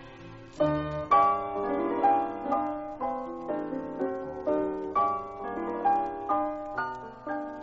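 Piano music: a melody of separate struck notes, several a second, beginning about half a second in.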